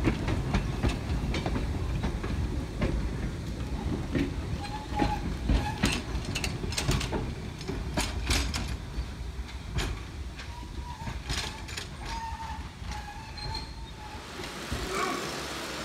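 Wooden passenger carriages rolling slowly past on the track: a steady low rumble with many irregular sharp clacks and knocks from the wheels and couplings. In the last couple of seconds the clacking stops and a smoother, steadier noise takes over.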